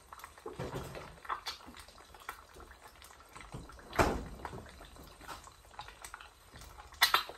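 Eggs frying in bacon fat, the hot fat crackling with scattered sharp pops, the loudest about four seconds in and a quick cluster near the end.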